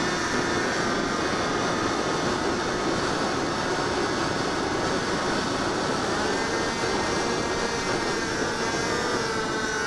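HobbyZone Delta Ray's electric motor and propeller whining in flight, heard from a camera mounted on the plane, over a steady rush of wind. The whine sags in pitch at the start and rises again about six seconds in.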